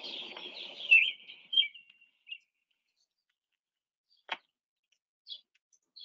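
American robin song from a played-back recording: a run of clear, warbled phrases for about two seconds, then a single click a little after four seconds and a couple of short, faint chirps near the end.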